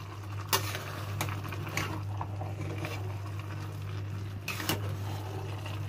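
Metal ladle stirring and scooping moist, half-cooked rice in a metal cooking pot, with a few short scrapes and knocks of the ladle against the pot over a steady low hum.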